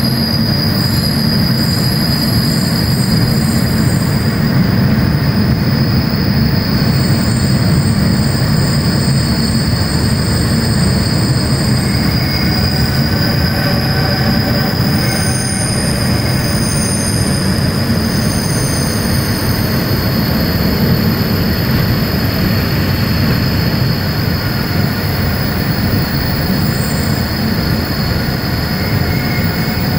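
Clayton CD40 40-tonne diesel locomotive running along the track: a steady, loud engine and wheel rumble with a constant high whine above it. Brief high squeals come and go.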